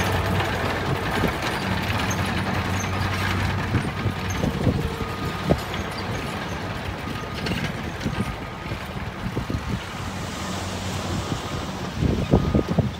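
Dump truck's diesel engine running steadily while its raised tipper bed empties a load of soil and rocks, with scattered knocks of tumbling rocks and a cluster of thumps near the end.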